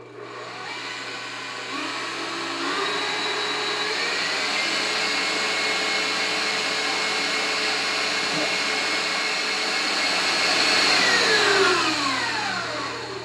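KitchenAid stand mixer with a wire whisk beating eggs to a foam: the motor's whine rises as it speeds up over the first few seconds, holds steady, then winds down near the end as it is switched off.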